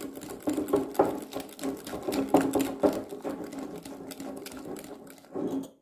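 Wire whisk beating homemade mayonnaise (egg yolk, mustard and oil) in a glass bowl: rapid, rhythmic clicking and scraping of the wires against the glass. It stops near the end.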